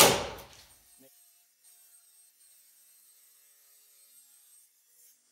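A loud sudden noise at the very start that dies away within about a second, followed by near silence with a faint high hiss.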